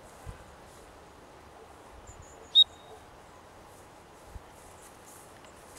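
Faint open-field ambience with insects and a few soft high chirps, broken about two and a half seconds in by one short, sharp, high-pitched chirp or whistle, the loudest sound here.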